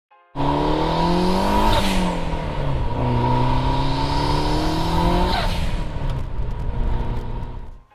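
Car engine accelerating hard through the gears: the pitch climbs, drops at a gear change about two seconds in, climbs again, then falls away and fades near the end, with a steady high whine underneath.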